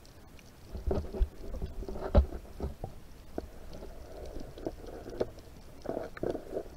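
Muffled underwater sound from an action camera in its waterproof case: water movement with irregular knocks and bumps against the case, the loudest about two seconds in and a few more near the end.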